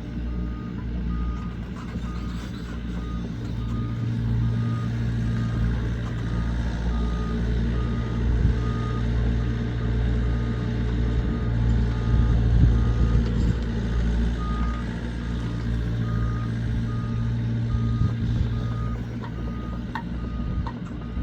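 Diesel engine of an earthmoving machine running steadily, with its reversing alarm beeping at even intervals throughout.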